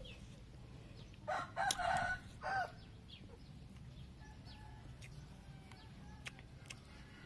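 A rooster crowing once, a broken call of about a second and a half starting a little over a second in. A few faint light clicks follow.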